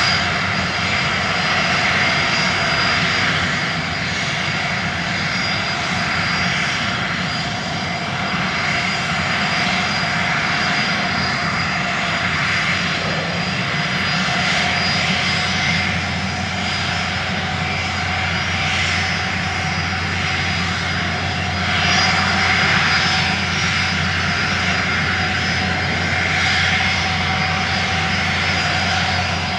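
Steady propeller whine of a small camera drone flying low and fast, with rushing air and a slight swell about 22 seconds in.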